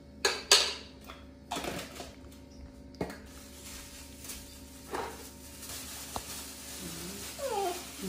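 Several sharp clicks and knocks of a spoon and tableware being handled, the loudest about half a second in. Near the end come short squeaky calls from a baby monkey, each sweeping up and down in pitch.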